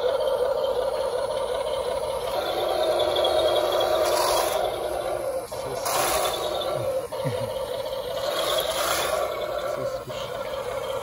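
Electric RC model crawler tractor running in place with a steady whir, with three short hissing bursts over it.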